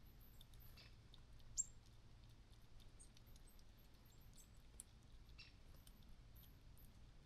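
Near silence, broken by faint scattered high ticks and one sharper click about one and a half seconds in.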